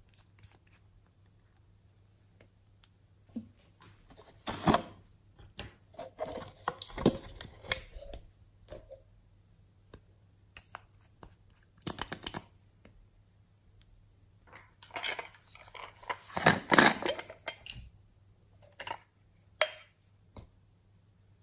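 Small glass nail polish bottles and a plastic lip gloss tube handled by hand, their caps gripped and turned, giving scattered clicks and short rasping scrapes. The busiest and loudest stretch comes about two thirds of the way through, with a couple of sharp clicks near the end.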